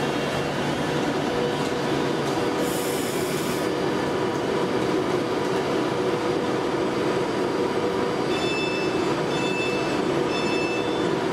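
Virgin Trains Class 390 Pendolino electric train standing at the platform, its onboard equipment giving a steady loud hum with several held tones. A short hiss about three seconds in, and near the end three short high beeps about a second apart.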